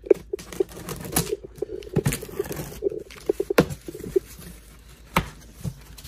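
A large cardboard shipping box being opened by hand: a run of sharp knocks and scrapes from the cardboard flaps, with tearing and rustling of the packing.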